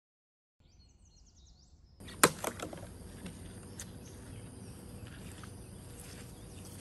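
Faint bird chirps, then from about two seconds in a steady outdoor hiss of open-air ambience with a few sharp knocks near its start.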